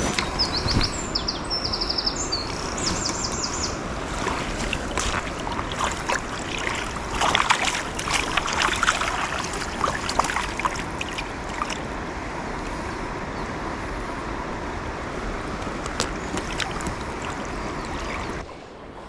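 Shallow river water running steadily around a wader's legs, with splashing and knocks in the middle as a fish is handled in a landing net at the surface.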